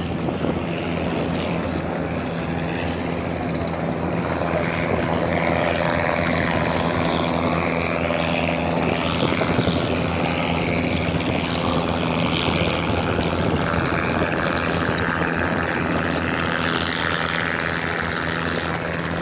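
An engine running steadily at one constant speed, a low, even hum that does not change.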